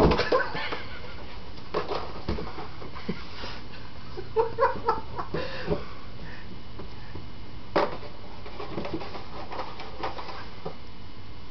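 Cardboard cereal box knocking and scraping on a hard floor as a cat noses into it and paws it along. A sharp knock at the start and another about eight seconds in, with a brief cluster of short pitched sounds about four and a half seconds in.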